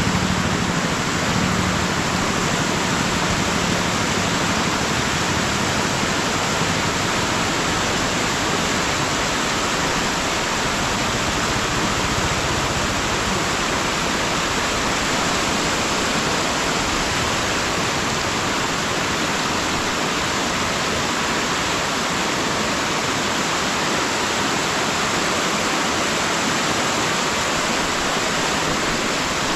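Floodwater flowing fast, a loud, steady rush of water. A low engine hum fades away in the first few seconds.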